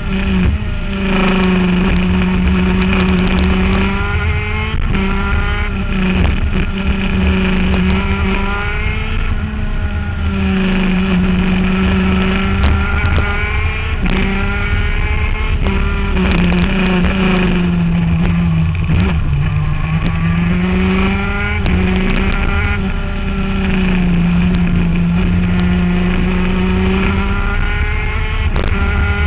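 ICC 125 shifter kart's 125cc two-stroke engine heard from onboard at racing speed. Its pitch climbs hard, then drops, over and over every few seconds as the kart accelerates down each straight and slows for the corners.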